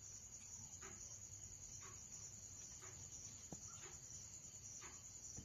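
Crickets chirping at night in a steady, high-pitched chorus, with a fainter chirp repeating about once a second.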